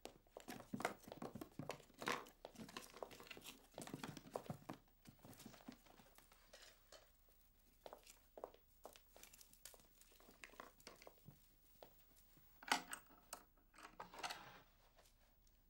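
Faint, irregular rustling with small clicks and taps, a few a little louder near the end.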